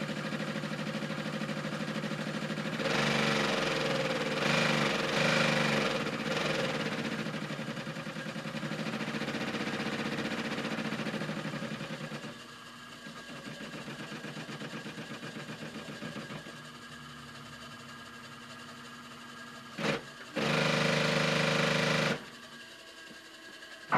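Electric sewing machine running in spurts at varying speed, its motor and needle mechanism giving a rapid, even chatter that stands in for a motorcycle engine. It is louder a few seconds in, drops quieter about halfway, and has a short loud run of about two seconds near the end.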